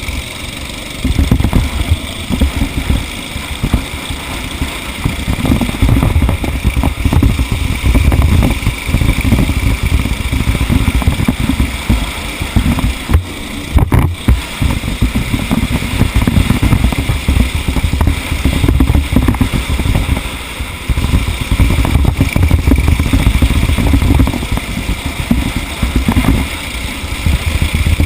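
Vehicle engine running under way in a race stage, heard as a loud, uneven low rumble that rises and falls.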